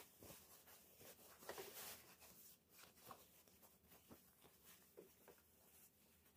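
Near silence: faint, scattered light clicks and soft rustles of small objects being handled.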